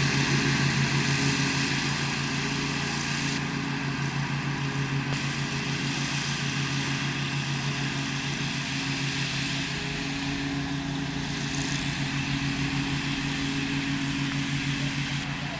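Bad Boy Rambler 42-inch mower's engine running steadily while mowing, an even pulsing drone with a wide hiss over it.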